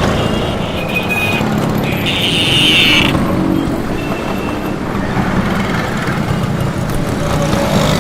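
Roadside city traffic, with cars and motorcycles passing close by with their engines running. A brief high-pitched tone about two seconds in lasts about a second.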